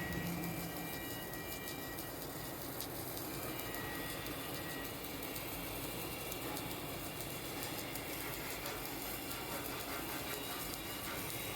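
Steady workshop machine noise during automatic submerged arc welding: a continuous even hiss and rumble with a faint hum, with no sudden changes.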